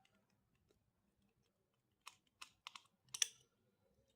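About two seconds of near silence, then a handful of light clicks and taps, the loudest a little after three seconds in, from a screwdriver and small parts as the two screws holding the humidifier's module are taken out.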